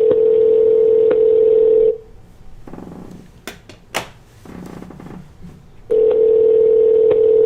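Telephone ringback tone heard over a phone line: a steady two-second ring, a four-second pause, then a second two-second ring, the sign of a call ringing at the other end, not yet answered.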